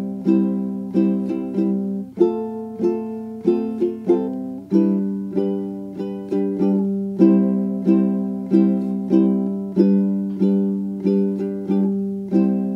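Background music: plucked string chords struck in a steady, even rhythm.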